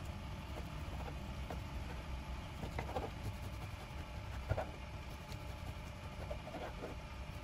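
Steady low hum with a few short, light knocks and taps scattered through it.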